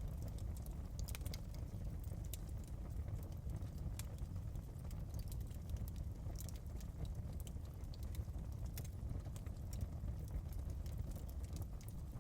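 Fire burning in a fireplace, crackling: irregular sharp pops and snaps scattered over a low, steady rumble of the flames.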